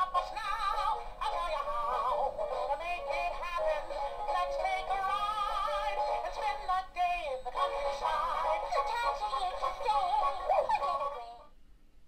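A song with singing, played through the small built-in speaker of a Mickey & Minnie's Runaway Railway remote-control roadster toy. It sounds thin, with no bass, and stops shortly before the end.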